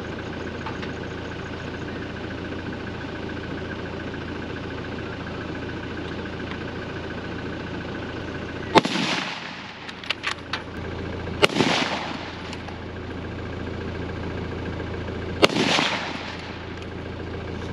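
Three gunshots a few seconds apart, each with a short echoing tail, over a vehicle engine idling steadily. A few lighter clicks follow the first shot.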